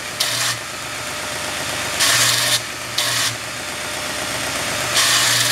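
A 2x72 belt grinder running steadily while a hardened steel knife blank is passed over its coarse 36-grit belt on a surface grinding attachment. There are four separate bursts of harsh grinding hiss, each under a second long, as the blank meets the belt.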